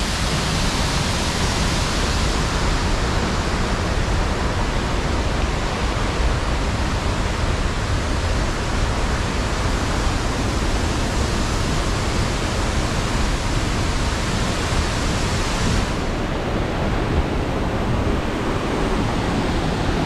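Steady rushing noise of a tall waterfall, the water dropping about 50 metres into its pool. About sixteen seconds in, the hiss loses its top and sounds duller.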